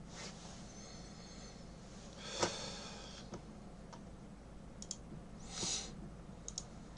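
A few small clicks at a desk, one sharper click with a short ring about two and a half seconds in, and a brief sniff near the end, over a low steady room hum.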